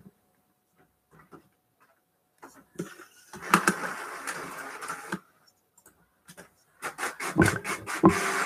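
A desktop printer running for about two seconds, a noisy mechanical rush, followed by a series of sharp clicks and knocks near the end.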